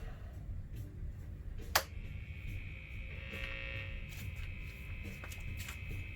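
1960s Sano tube amplifier switched on and idling, a steady low mains hum coming through its speaker. A sharp click comes just under two seconds in, then a high steady whine joins the hum.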